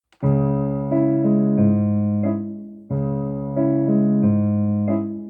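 Electronic keyboard playing a slow folk melody in C-sharp minor over held chords. It plays two phrases of about two and a half seconds each, each fading before the next begins.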